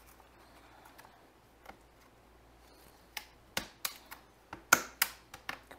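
Plastic display bezel of a Lenovo ThinkPad E15 Gen2 lid being pressed home by hand, its clips snapping into place. This makes a quick run of sharp clicks starting a little past halfway, the loudest about three-quarters of the way through.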